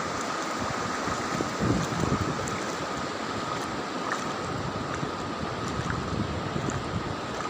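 Sea surf washing steadily, with wind buffeting the microphone in a few low gusts.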